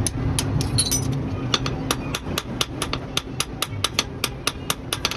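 Hammer blows on steel, a few spaced strikes at first and then an even run of about four a second, each ringing brightly, over a steady low rumble.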